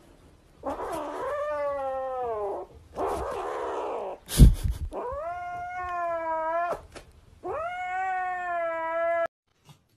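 A young cat yowling: three long, drawn-out wails with a slightly falling pitch, with a harsher, noisier stretch between the first two. A sharp knock comes about four and a half seconds in.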